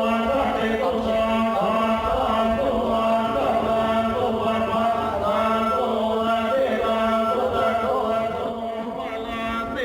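Male voices chanting in unison, a Buddhist-style chant, over a steady low held tone. It eases a little near the end.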